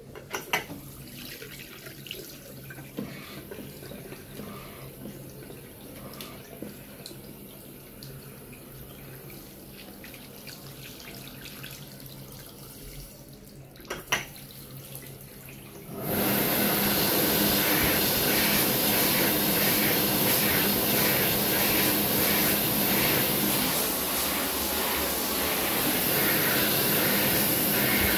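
A sink tap runs over hands being washed, with a couple of sharp knocks. About 16 seconds in, an AIKE AK2030 (HandyDryers Gorillo Ultra) hand dryer cuts in suddenly: a loud, steady rush of air with a strong high hiss.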